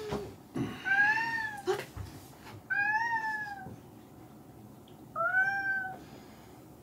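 Domestic cat meowing three times, each meow rising and then falling in pitch, spaced about two seconds apart.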